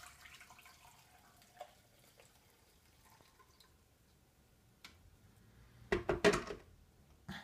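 Red cabbage liquid trickling from a blender jar through a strainer into a plastic measuring jug, with a few light clicks. About six seconds in, a quick cluster of loud clunks as the blender jar is set back down on its base, and one more knock near the end.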